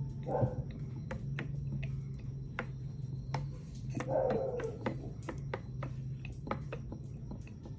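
Cooking oil glugging from a tipped plastic bottle into a glass jar: a string of small irregular clicks over a steady low hum. A short whine comes twice, near the start and about four seconds in.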